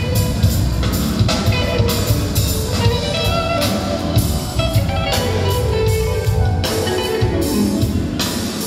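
A live band playing at a soundcheck through the arena PA: a drum kit keeping a steady beat of hits under guitar and other pitched instrument lines, ringing in a large empty hall.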